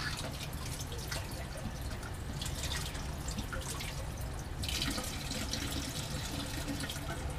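Tap water running from a lab sink faucet and splashing as a glass separatory funnel is rinsed under it. The splashing turns brighter and hissier a little past halfway.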